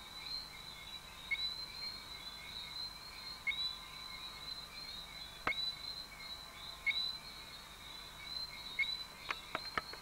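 Tropical forest animal chorus: a steady high-pitched trilling with small repeated chirps. One sharp falling whistle comes about halfway through, and a quick run of three or four more comes near the end.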